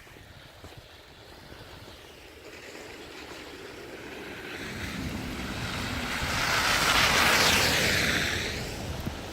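A vehicle passing by on a snowy, slushy street, its tyres hissing through the slush; it swells to a peak about seven seconds in and fades away.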